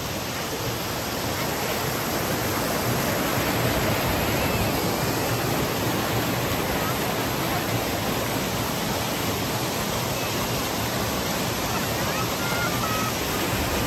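Mountain stream rushing and splashing over boulders: a steady, even rush of water.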